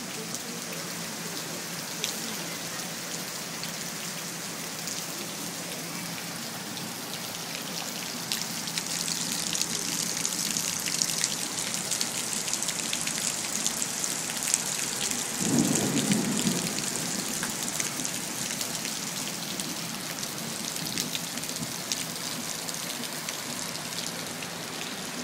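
Heavy rain pouring onto a flooded street and pavement, a steady hiss that grows heavier about a third of the way in. A brief low rumble comes about two-thirds through.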